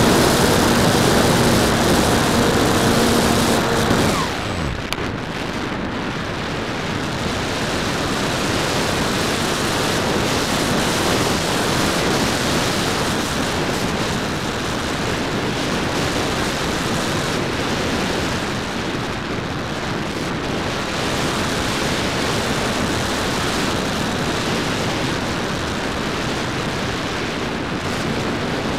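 A hotliner's electric motor and propeller run with a steady whine, then wind down in a falling tone about four seconds in as the power is cut. After that there is a steady rush of airflow over the airframe and the onboard camera while the model glides unpowered.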